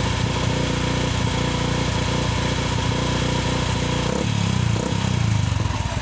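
Yamaha Sniper 150's single-cylinder four-stroke engine through an Exos X-6 aftermarket exhaust, revved and held at a raised speed for about four seconds. It then drops back, with a couple of short throttle blips, before settling toward idle.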